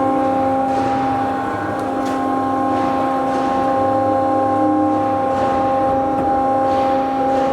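Hyd-Mech V-18 tilt frame vertical bandsaw running steadily: its motor and drive give a constant hum with a fixed-pitch whine that holds level throughout.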